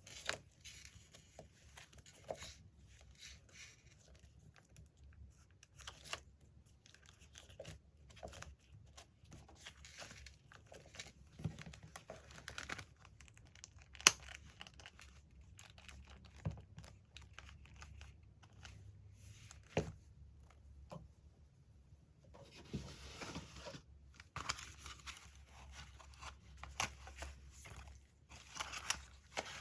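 Magazine paper being handled and torn: rustling and tearing paper with scattered light clicks and taps. There is one sharp click about halfway through, and the rustling grows busier near the end.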